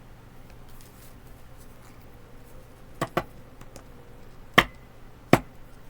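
Tarot cards being laid down on a table: four sharp taps, a quick pair about three seconds in, then two louder single taps over the next two seconds or so.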